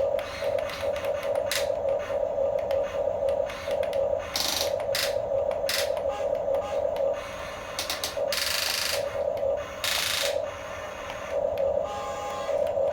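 Small electric gear motors of radio-controlled toy construction vehicles whining in short on-and-off pulses, with scattered clicks and two short hissing bursts a little past halfway.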